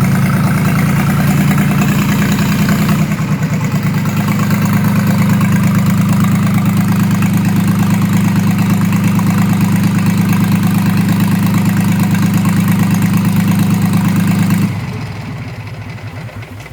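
Bukh DV36 three-cylinder marine diesel engine running steadily, then shut off about fifteen seconds in, slowing and stopping over a couple of seconds.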